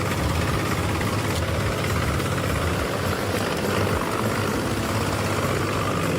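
Heizohack HM 8-400 wood chipper running steadily, a constant heavy engine hum with a noisy rush from the machine.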